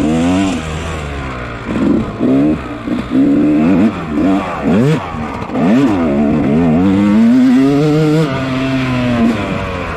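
250 cc dirt bike engine under race throttle: its pitch climbs and drops back again and again as it accelerates, shifts and comes off the throttle, then holds steady for about a second near the end.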